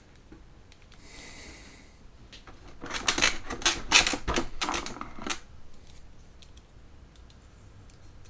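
Plastic model-kit parts clattering and clicking against each other in the kit's parts tray as hands rummage through them: a rapid run of clicks lasting about two and a half seconds, after a brief rustle about a second in, then a few light ticks.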